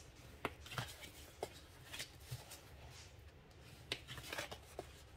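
Scored cardstock of a small paper box being folded and burnished along its score lines, heard as faint, scattered short scrapes and taps of paper and tool on the table.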